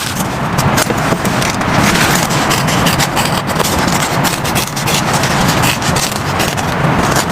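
Heavy rain falling steadily, with dense close drops striking a surface.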